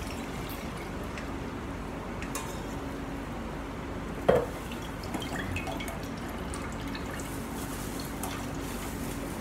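Coconut milk trickling and dripping through a small mesh strainer into a metal pot, with one sharp metallic clank about four seconds in as metal cookware knocks together. A low steady hum runs underneath.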